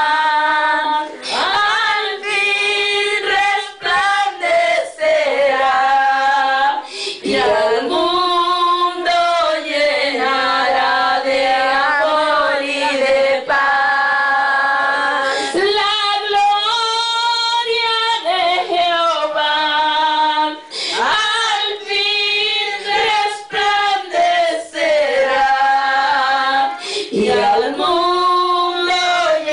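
A small church congregation singing a worship song together, women's voices to the fore, in long held phrases with short breaks between them.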